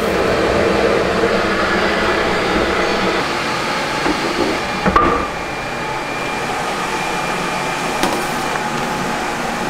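Steady machine hum, with a single sharp knock about halfway through.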